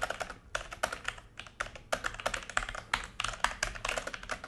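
Logitech G413 mechanical keyboard being typed on fast, with keystroke clicks in quick runs broken by short pauses.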